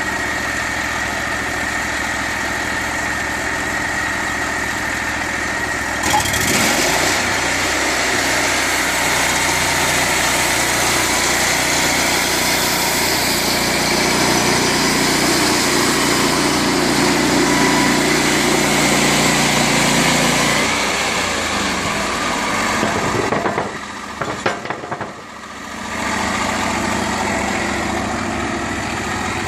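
Bandsaw sawmill running on its engine. About six seconds in the sound grows louder and noisier, as the band blade cuts through a log, until past twenty seconds. It then dips briefly with a few clicks and settles back to a steady engine run.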